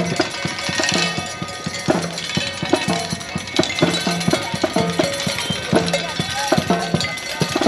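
Protesters' noise-making: drums and other hand-struck percussion banged in a fast, uneven clatter, with voices mixed in.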